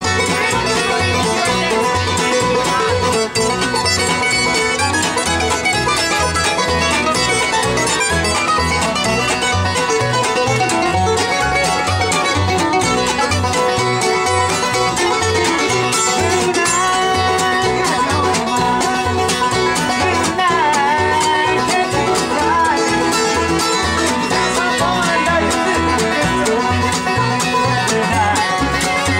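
Acoustic bluegrass jam: fiddle, mandolin and guitar playing together at a steady, bouncing tempo, with bass notes on every beat.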